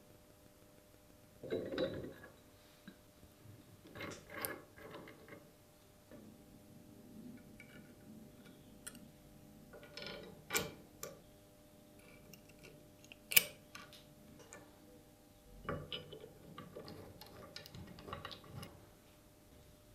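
Steel parts of a metal shear being handled during reassembly: scattered clicks and clinks as a bolt and a loose steel blade are fitted against the frame, with one sharp click in the second half.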